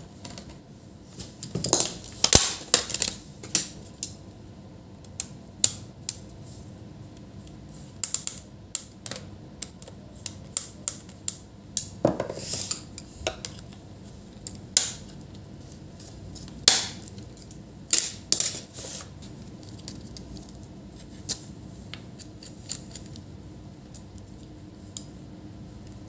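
Irregular clicks, clinks and short scrapes of a screwdriver, small screws and the bottom cover panel of an HP ProBook 450 G5 laptop as the cover is unscrewed and lifted off.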